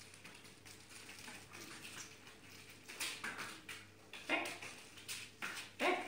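A dog making a few short, soft whines in the second half, over faint shuffling.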